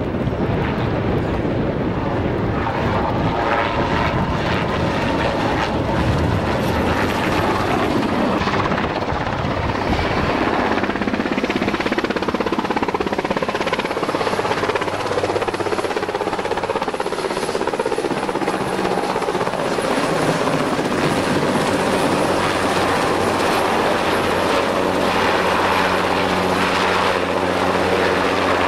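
Westland Wessex helicopter's rotors and turbine engines. For the first ten seconds or so there is a rushing sound as it flies past, then a steady rotor beat with a thin, high turbine whine as it comes in low and close.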